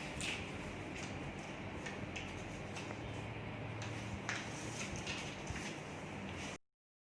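Steady room hiss with a few faint clicks and light rustles; the sound cuts off abruptly about six and a half seconds in.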